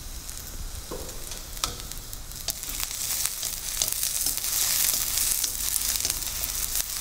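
Chopped spring onion sizzling as it fries in hot oil in a steel wok on high heat, with a wooden utensil stirring and now and then clicking against the pan. The sizzle grows louder about halfway through.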